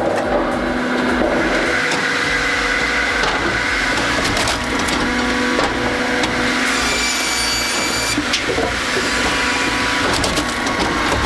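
Posh SpaltFix S350 firewood processor running steadily while it saws and splits logs. A high whine comes in for about a second just past the middle.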